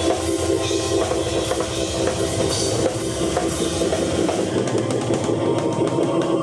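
Live rock jam on keyboard and drum kit: the keyboard holds a sustained chord while the drums play fast, busy strokes with bass drum and cymbals.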